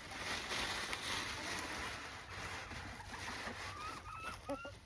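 A steady rushing noise for the first few seconds, then hens clucking, with several short rising calls near the end.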